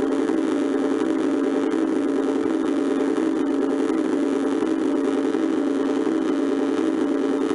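Jolly Roger Bykero motorbike kiddie ride running, giving out a steady motorbike engine sound that pulses evenly about twice a second.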